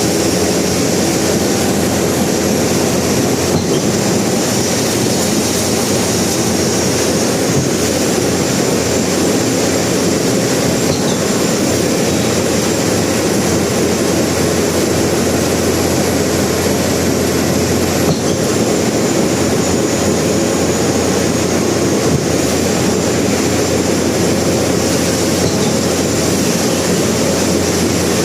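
Concrete pump running: a loud, steady mechanical noise with a low drone and no pauses.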